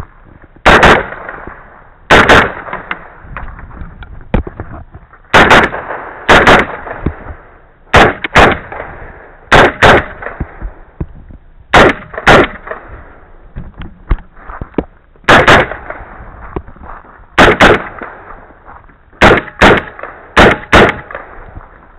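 A string of rifle shots fired at a match: about eighteen sharp cracks at uneven spacing, often in quick pairs, each with a short echo.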